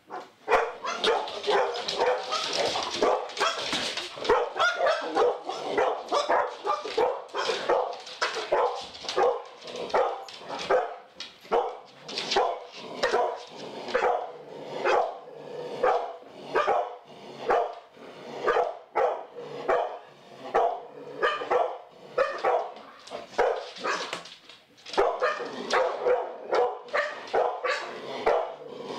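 Two pit bulls breaking out suddenly into rapid, nonstop barking, two to three barks a second, with some overlapping. It is aggressive guard-dog alarm barking at what they take for an intruder.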